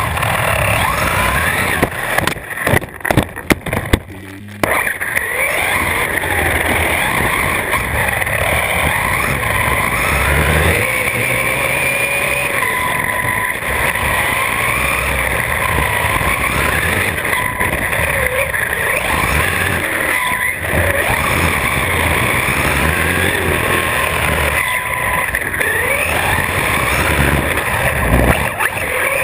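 Electric RC car's brushless motor whining, its pitch rising and falling with the throttle, over a low rumble of tyre noise, picked up by a camera mounted on the car. A burst of sharp knocks and jolts about two to four seconds in.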